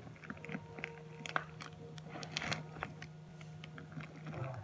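Crunchy fluffy slime being squished and pressed by hand, giving irregular crackling clicks and pops.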